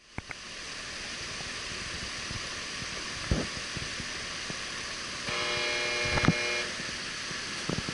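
Steady hissing background noise with scattered clicks and knocks, and a single held tone with overtones about five seconds in, lasting over a second.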